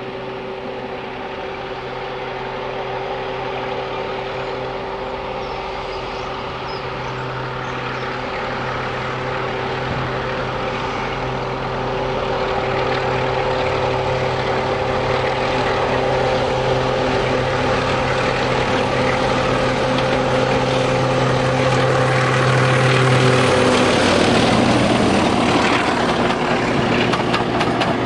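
BR Sulzer 'Peak' class diesel locomotive, with a twin-bank twelve-cylinder engine, working hard under load as it hauls a train of coaches round a curve, its engine growing steadily louder as it approaches. About 23 seconds in it passes close by and the engine note drops, giving way to the rush of the passing coaches, with the clicks of wheels over rail joints near the end.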